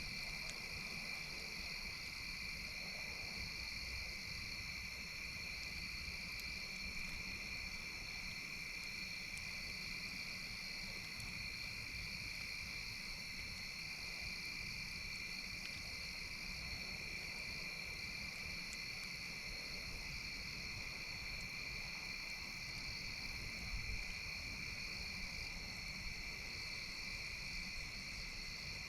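Chorus of crickets chirring steadily at two pitches, the higher one pulsing in a slow, even rhythm, over a low rumble.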